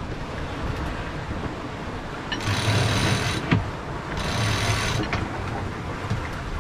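A sailboat's line hauled by hand through its block in two pulls, each a rushing run of rope about a second long, with a sharp knock between them, over steady wind and sea noise.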